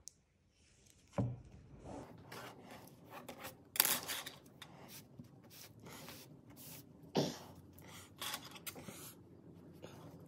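Hands handling a twisted cotton-rope wall hanging on a tabletop: rope and cord rubbing and rustling against each other and the table, with a few short, sharper knocks.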